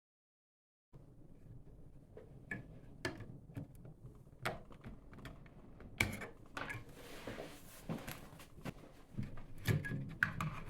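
Irregular small clicks, taps and knocks of plastic watercolour pans being handled and set into a metal palette tray, with a brief rustling, sliding sound partway through. The sounds start about a second in.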